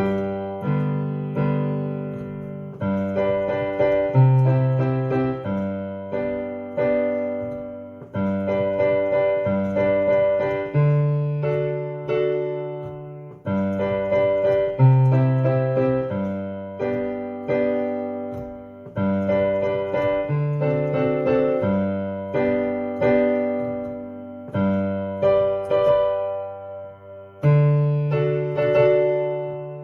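Piano playing a slow chordal accompaniment to a gospel hymn: full sustained chords over a low bass line, struck about once a second and left to ring and fade, with no singing.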